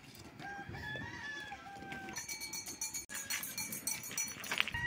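Goats bleating: one long, wavering call, then higher bright calls.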